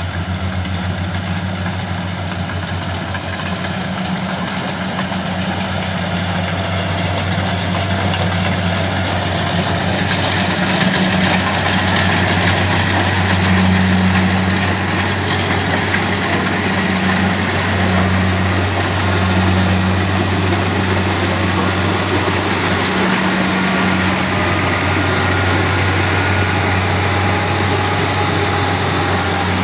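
Rice combine harvester engine running steadily with a deep hum, growing a little louder about ten seconds in.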